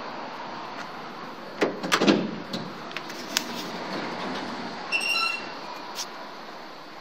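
Schindler hydraulic elevator's sliding doors opening, with a cluster of clicks and knocks about two seconds in. A short, high single beep follows about five seconds in.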